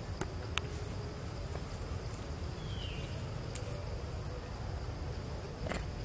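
Woodland ambience: a steady low rumble with a faint insect hum above it, a few soft clicks, and one short falling chirp nearly three seconds in.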